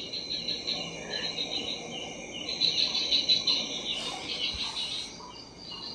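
Night-time jungle chorus of insects such as crickets: a dense, high chirring made of many quick repeated chirps. It cuts in suddenly at the start and swells louder through the middle.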